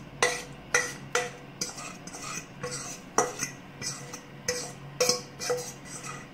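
A utensil knocking and scraping against the sides of a metal pot while thick cornmeal porridge is stirred, about two knocks a second. The pot rings briefly after each knock.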